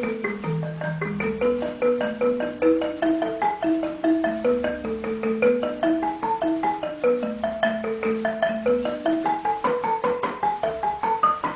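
Background music: a fast, unbroken run of short struck mallet-percussion notes stepping up and down in a melody.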